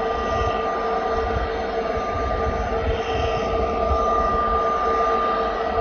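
Jet airliner engines running steadily, a broad rush with a constant multi-tone whine over an uneven low rumble.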